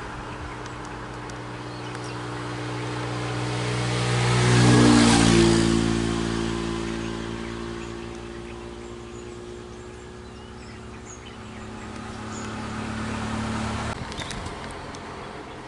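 A motor vehicle's engine driving past on the road: it grows louder to a peak about five seconds in, its pitch drops as it goes by, and then it fades. A second engine swells up near the end before the sound cuts off abruptly.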